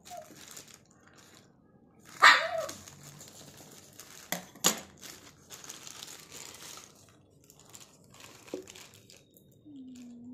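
Plastic courier mailer crinkling and rustling as it is cut open and the box inside is pulled out, with two sharp clicks a little before the middle. About two seconds in comes a single loud, short yelp, the loudest sound here.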